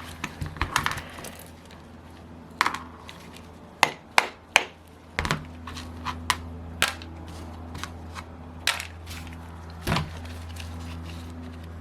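Sharp, irregular metal clicks and knocks, about ten in all, of tools and a mallet tapping at and working loose the rear cover of a Saito 150 model four-stroke engine. A steady low hum sets in about five seconds in.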